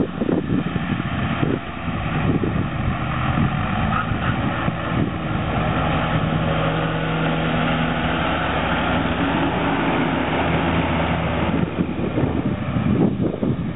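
A tractor engine runs steadily under load while its mower cuts grass as the tractor passes close by. Wind rumbles on the microphone at the start and again near the end.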